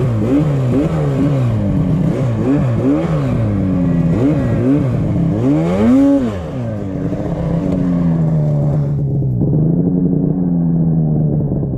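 Snowmobile engine revved in quick repeated throttle blips, about two a second, as the sled is worked free from deep powder. About six seconds in comes one bigger rev, then the engine runs more steadily as the sled pulls away.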